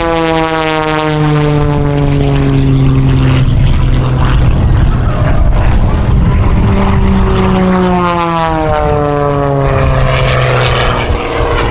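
Piston engines of propeller-driven aerobatic planes, first a biplane and then a monoplane, running loud as they fly past. Each engine's drone drops in pitch as the plane goes by, once in the first few seconds and again about two-thirds of the way through.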